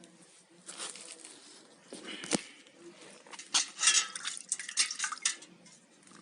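Cat eating fish: irregular bursts of wet chewing and crunching, with one sharp click about two seconds in.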